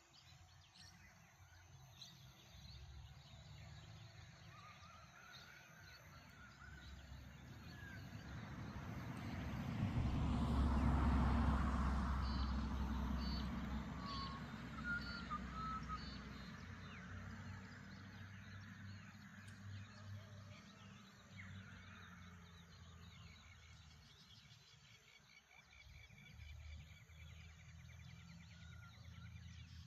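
Outdoor morning ambience: scattered short bird chirps and calls over a steady low background, with a broad rushing sound that swells about a third of the way in and slowly fades away.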